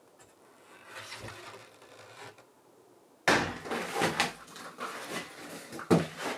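Heavy solid-birch tabletop being carried into a small workshop: irregular wooden knocks and scrapes begin abruptly about three seconds in, with one sharp thump near the end. Before that, faint rustling.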